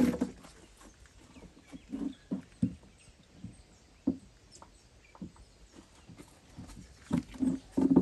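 An animal's low, pitched call, loud at the very start and again from about seven seconds in, with faint scattered knocks and taps between.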